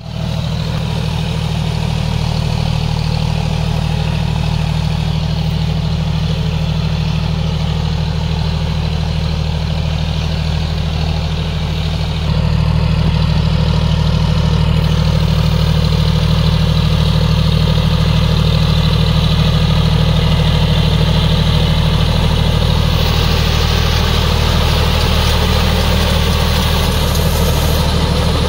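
John Deere 5050D tractor's three-cylinder diesel engine running steadily under load while driving a rotavator through deep mud, getting louder about twelve seconds in.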